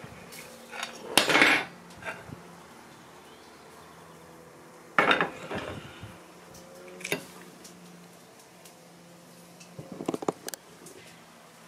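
Fork and knife clinking and scraping against a porcelain plate while eating, in scattered short clatters: a strong one about a second in, another about five seconds in, one near seven seconds and a quick run of clinks near the end.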